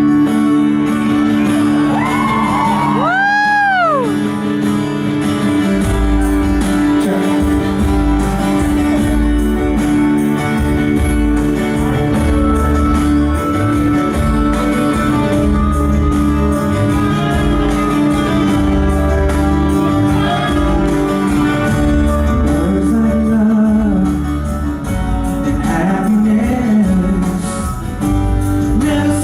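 Live pop vocal group performance over an amplified band or backing track in a large hall: held chords and singing, a high sliding shout or whoop about two to four seconds in, and a heavy bass line coming in about six seconds in.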